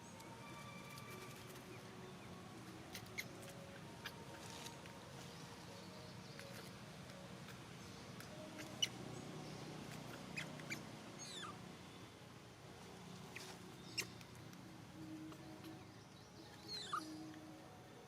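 Baby monkey giving scattered short, high-pitched squeaks and a couple of falling whistle-like cries, with a few sharp clicks.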